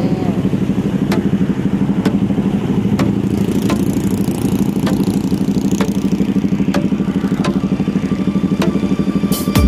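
Yamaha NMAX scooter's single-cylinder engine running steadily, with a light tick recurring about every three-quarters of a second. Background music comes in right at the end.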